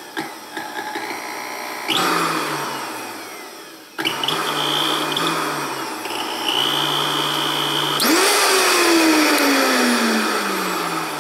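Vitamix Professional Series 200 blender motor run on the bare base with no jar, as a test after repair: a few clicks, then the motor starts and spins down, starts again and runs steady, jumps up in speed near the eight-second mark, then falls in pitch until it cuts off.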